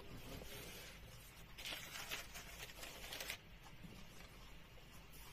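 Faint rustle of paper as a hand handles and smooths the pages of a bound copybook, most audible from about one and a half to three and a half seconds in.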